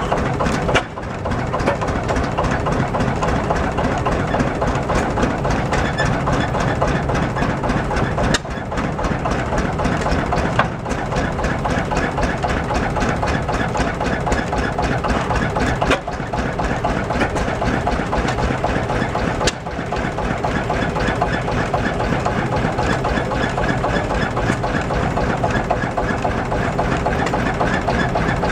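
Large antique engine with a flywheel running steadily, with a fast, even firing rhythm.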